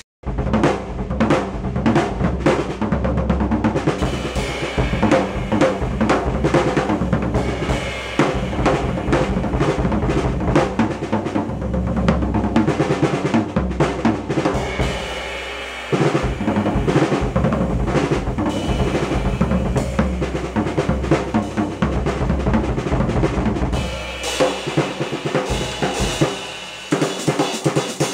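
Drum kit played with sticks: a continuous run of strokes on snare and bass drum with cymbals, the cymbals ringing out more strongly over the last few seconds.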